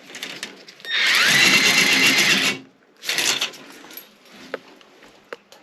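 A power tool's small electric motor spinning up and running for about a second and a half, then a shorter second run, turning a drain snake in a toilet.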